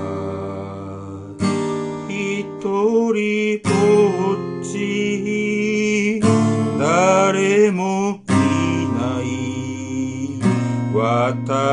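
Capoed steel-string acoustic guitar strumming chords. A new chord is struck about every two seconds and rings on between strokes.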